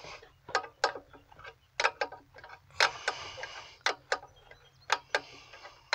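Brake line (flare-nut) wrench clicking against a brake line fitting on the master cylinder as the fitting is snugged tight: about eight sharp metallic clicks at irregular intervals, each time the wrench is repositioned and turned.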